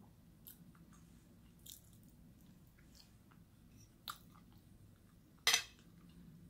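A person chewing a mouthful of rice and cheese enchilada with the mouth closed, with soft wet mouth clicks. A sharper click comes about four seconds in, and near the end a short loud scrape of a metal fork against the plate, the loudest sound.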